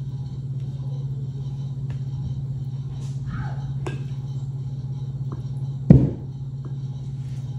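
Metal utensil scraping and clicking in a glass bowl of pico de gallo, with one loud knock about six seconds in, over a steady low hum.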